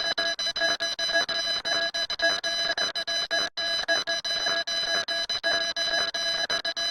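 Electronic alarm tone: a shrill steady note with overtones, chopped into rapid, uneven pulses, with one brief break about three and a half seconds in.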